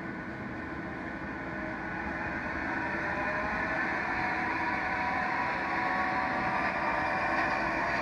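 Electrotren H0-scale model of a RENFE class 443 electric multiple unit running along the layout track: a steady motor whine with wheels rolling on the rails, getting louder and rising slightly in pitch as the train speeds up and comes past.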